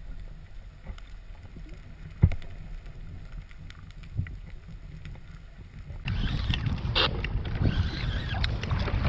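Muffled low rumble of an action camera under the sea, with one sharp knock about two seconds in. About six seconds in it gives way to louder wind buffeting the microphone and water slapping and splashing against a kayak on open sea.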